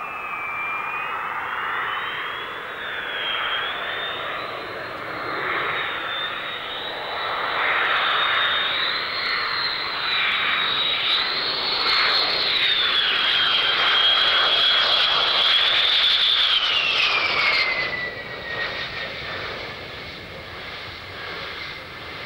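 F-111's twin TF30 turbofan engines whining on a landing approach. The sound grows louder as the jet comes in. About three-quarters of the way through, the high whine slides down in pitch and the sound drops off.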